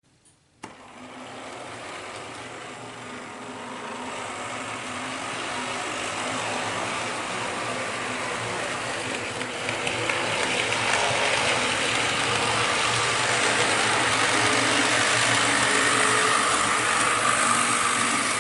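Electric model railway locomotive hauling coaches round the track: a steady motor whir with the rattle of wheels over rail joints, starting about half a second in and growing louder as it runs. It cuts off sharply at the very end, where the train stalls on the points.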